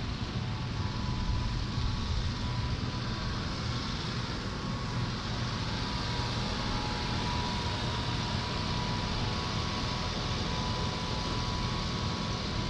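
Electric fans, box fans and desk fans, running on low speed: a steady airy hum with a few faint, steady motor whines and a low rumble beneath.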